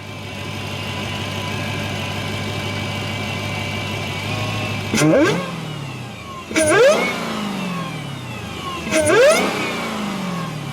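Supercharged 6.2-litre Hellcat V8, fitted with a K&N cone intake filter, idling with a steady high supercharger whine, then blipped three times. Each blip brings a sharply rising whine that glides back down as the revs fall.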